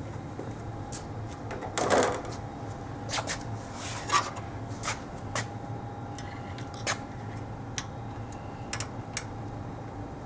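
Scattered clicks and knocks of machine guard parts being handled and removed, with a louder clatter about two seconds in, over a steady low machine hum.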